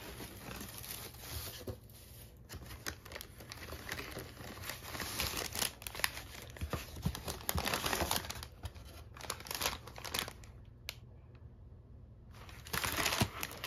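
Packing materials rustling and crinkling as hands unpack a cardboard box: honeycomb kraft paper wrap being pulled back and foam sheeting handled. Irregular rustles, with a quieter pause a little before the end and a louder burst of rustling just before the end.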